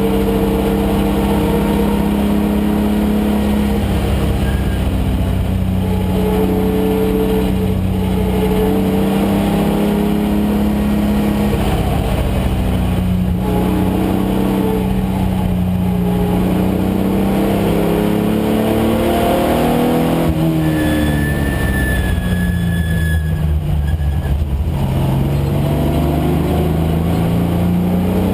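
Datsun 510 wagon's swapped-in VG30 V6 engine running hard at racing speed. About twenty seconds in, its pitch drops as the revs come down, then climbs again as it accelerates.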